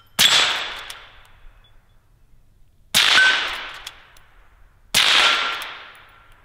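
Three suppressed shots from a Henry Frontier lever-action rifle in .22 Magnum with a SilencerCo Sparrow suppressor, spaced about two to three seconds apart. Each is a sharp pop whose echo dies away over about a second. A faint ring from the steel targets lingers after the shots.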